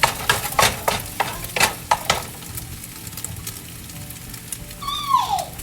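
Eggs and vegetables frying in olive oil, stirred with a spatula: a quick run of scrapes against the pan in the first two seconds, then steady sizzling. A short falling whine sounds near the end.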